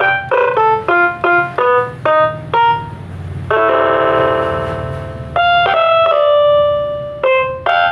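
Casio SA-47 mini keyboard playing a melody through a TOA ZH-615R horn speaker, driven by a small TDA2003 amplifier. Short separate notes come first, then a chord held for almost two seconds about halfway through, then more notes and a longer held note.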